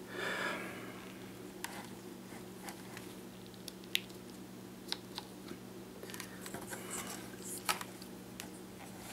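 Small plastic clicks and rubbing from hands working the DJI Phantom 2 Vision's gimbal mounting plate and its rubber damper bushings: a soft rustle just after the start, then scattered light ticks, the sharpest about four seconds in and near the end, over a faint steady low hum.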